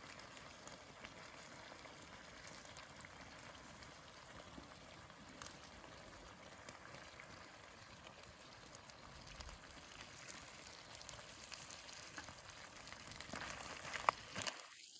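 Crab curry simmering in a pan over a campfire: a faint, steady bubbling hiss with scattered small pops. Near the end a few louder knocks and scrapes come as a spatula stirs the pan.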